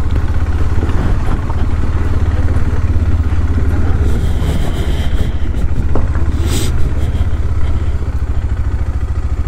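KTM 390 Adventure's single-cylinder engine running steadily at low revs, a pulsing low note, as the motorcycle rolls slowly.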